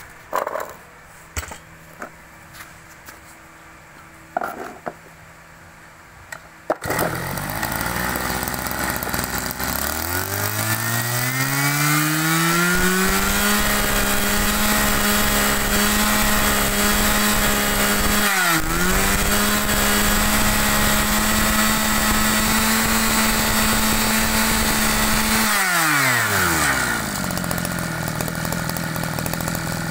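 Mitsubishi TL261 brush cutter's small two-stroke engine idling quietly with a few clicks, then opened up about seven seconds in. It climbs to full speed and holds a steady high note for about twelve seconds with one brief dip, then drops back to idle near the end.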